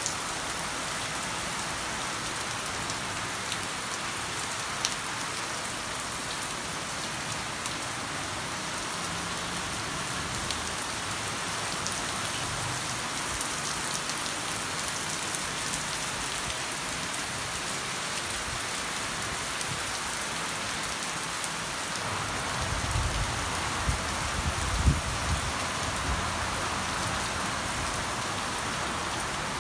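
Heavy rain falling steadily on garden foliage and lawn: an even hiss with scattered taps of drops. Past the two-thirds mark a low rumble comes in for a few seconds, with one thump.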